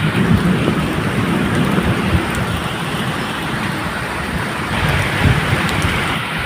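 Steady medium rain, with a low, uneven rumble of thunder underneath.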